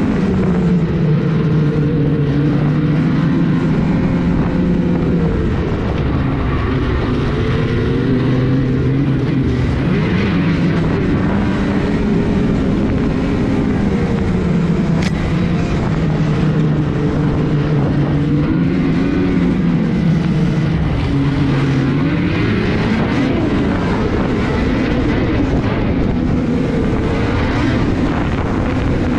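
Ski-Doo Blizzard 850's two-stroke twin engine running under way, heard from aboard the sled, its pitch rising and falling again and again as the throttle is worked.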